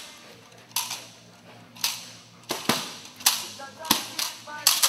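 A dog barking sharply and repeatedly, about nine barks with a short echo, coming closer together toward the end.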